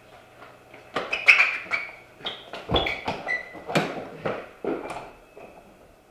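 A quick series of sharp knocks and clanks, several with a short metallic ring, over about four seconds, then stopping.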